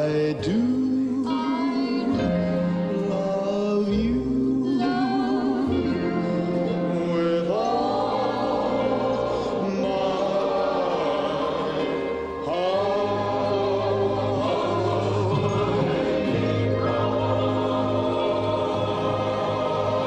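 Music with singing voices: long held notes with vibrato over a steady accompaniment.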